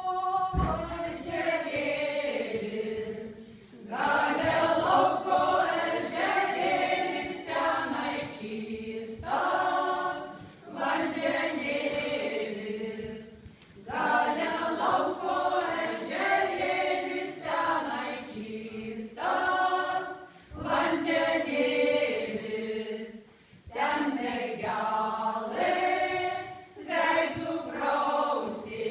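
Women's folk choir singing unaccompanied, in phrases of a few seconds with short breaks for breath between them.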